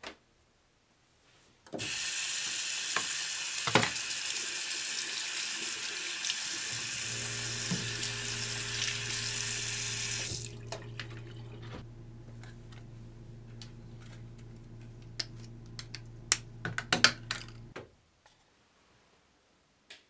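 Tap running hard into a bathroom sink, splashing over a glass lying in the basin, for about eight seconds. The flow then turns quieter under a steady low hum, with a flurry of knocks and clicks before everything stops suddenly.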